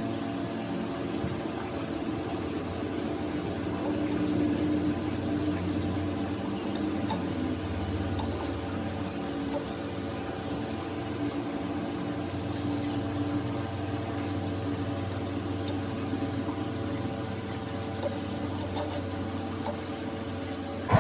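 A workshop machine running with a steady hum, with scattered faint clicks and ticks on top.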